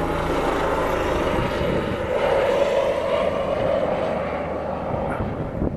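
Tour helicopter flying low overhead, a steady rotor and turbine noise that is loudest about halfway through and eases slightly near the end.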